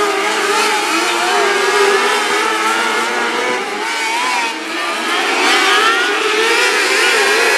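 Engines of a pack of small open-wheel dirt-track race cars running at speed together, several overlapping engine notes rising and falling.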